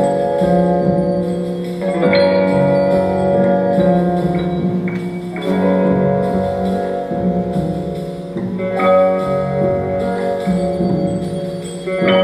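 Instrumental music: chords of struck notes that ring out and fade slowly over a held low note, a new chord sounding about every three and a half seconds.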